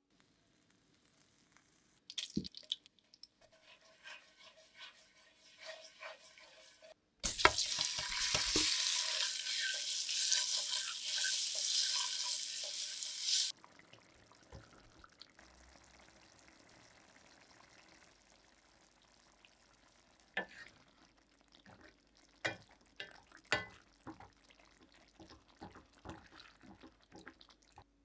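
Small knife scrapes and taps on boiled eggs, then a loud sizzle for about six seconds as the scored boiled eggs fry in hot oil, starting and stopping abruptly. Scattered light metal clicks and knocks follow near the end.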